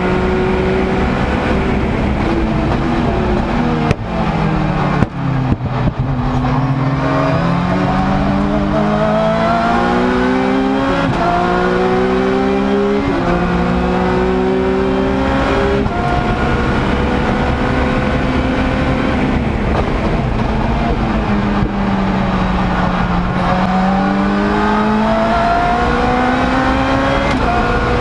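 Lotus Exige race car's engine heard from inside the cockpit at racing speed. About four seconds in it drops sharply in pitch with quick downshifts under braking, then climbs through the gears with abrupt upshifts. It holds steady for a while, falls again about two-thirds of the way through, and revs up once more near the end.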